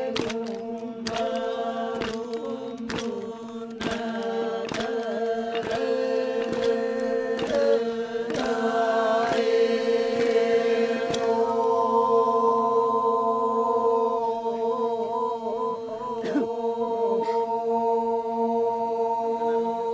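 Men's chorus chanting the Toraja Manimbong, a held drone with a melody line over it that moves to a higher held note about halfway through. Sharp knocks keep a beat roughly once a second during the first half.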